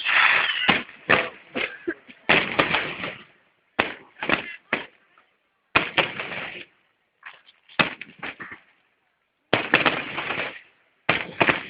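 Fireworks display: a dozen or so sudden bangs and crackling bursts of aerial shells, some in quick clusters, others on their own with short quiet gaps between.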